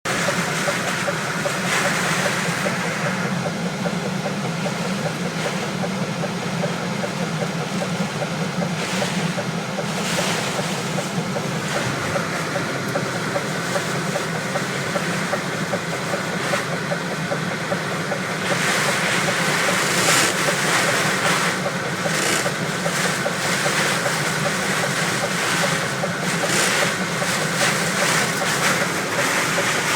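Heavy rain and storm wind beating on a truck, heard from inside the cab: a steady loud rush that swells in gusts, growing louder about two-thirds of the way through.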